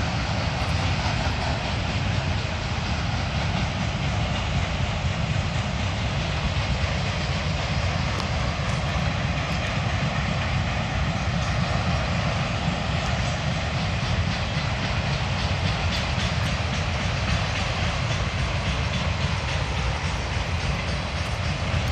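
Freight train of enclosed autorack cars rolling past at steady speed, the wheels on the rails and the cars giving a continuous, even rumble.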